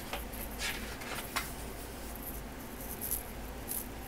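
Paper rustling and brushing as a page of a large photobook is handled and turned: several brief, soft swishes, most in the first second and a half and two more later.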